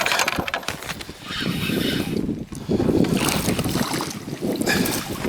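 Wind buffeting the microphone, with water splashing and lapping around a small boat on choppy water, broken by a few short knocks and splashes.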